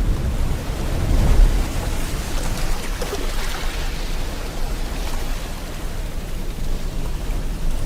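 Steady rain falling with ocean waves rolling in, a deep surge of surf swelling about a second in.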